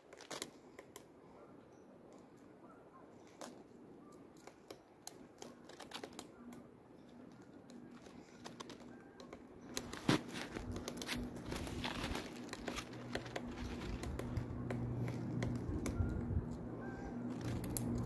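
Woodpecker pecking at tree bark: irregular single taps, with one louder knock about halfway through. A low steady hum sets in about halfway through and grows louder.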